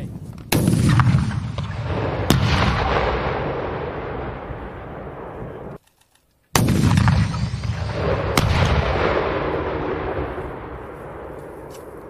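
M136E1 AT4 CS anti-tank launcher fired twice. Each shot is a sharp blast with a long rolling echo, followed a little under two seconds later by a second bang as the round hits the target. A brief gap of dead silence separates the two shots.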